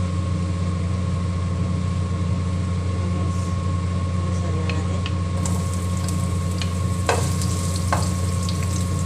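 Food frying in a pan on the stove: a steady sizzle over a constant low hum, with a few sharp utensil clicks about seven and eight seconds in.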